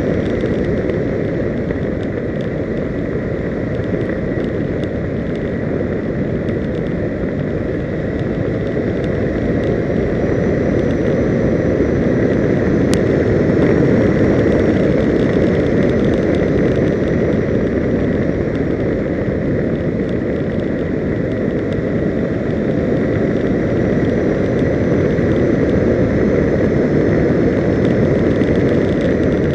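Wind buffeting the microphone of a camera on a vehicle moving along a road: a steady low rushing noise.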